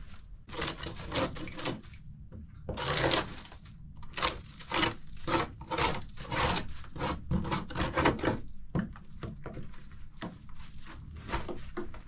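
A shovel scraping and tossing snow, a run of short scrapes about two a second, with one longer scrape about three seconds in.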